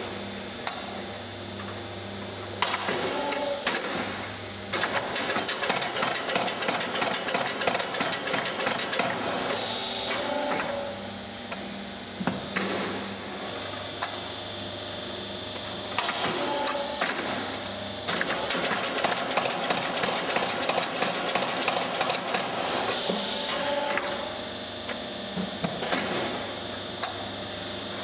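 Automatic filter press plate shifter and hydraulic cake-release device at work: a steady low machine hum with two long stretches of rapid rattling and knocking, each followed by a short hiss. The rattling is the hydraulic lifter shaking a filter plate in quick strokes to knock the filter cake off the cloth.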